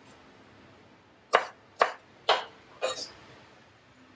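Kitchen knife chopping jackfruit bulbs on a wooden cutting board: four sharp knocks about half a second apart, starting about a second in.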